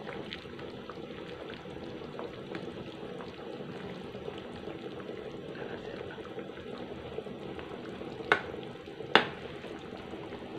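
Asam pedas curry gravy simmering in a metal wok while a ladle stirs it, a steady soft bubbling with small scrapes. Near the end, two sharp knocks about a second apart.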